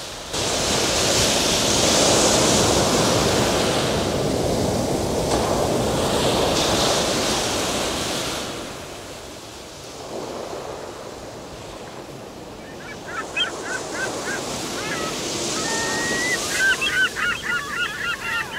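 Surf washing on a sandy beach with wind, loudest for the first eight seconds and then quieter. From about two-thirds of the way in, birds call in short wavering notes, coming thick and fast near the end.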